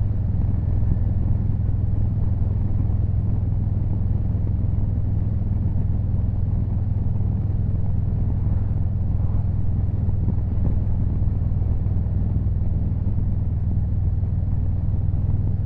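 Harley-Davidson Road Glide Limited's V-twin engine running at a steady cruise, a constant deep rumble with road noise over it.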